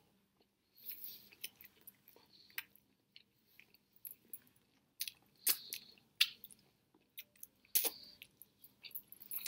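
A person chewing a mouthful of sandwich close to the microphone, with scattered wet mouth clicks and smacks, a few sharper ones in the second half.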